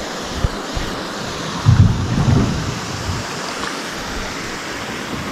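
Water rushing over a small concrete dam, a steady hiss and rumble, with a few low thumps about two seconds in.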